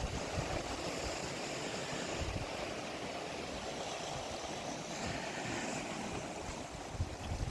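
Wind buffeting the microphone in irregular low gusts over a steady hiss of sea and surf.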